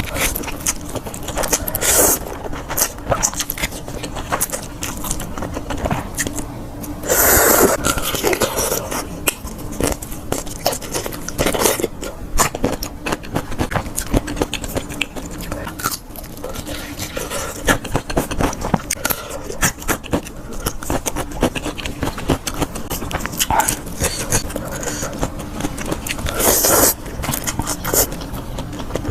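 Close-miked eating sounds: continuous chewing and crunching with many small clicks, and two louder, longer noisy passages, about seven seconds in and near the end.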